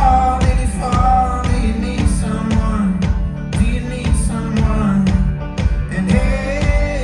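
Live folk-rock band playing loudly, with strummed banjo and guitars over a steady beat and voices singing a held, wavering melody, as heard from the audience.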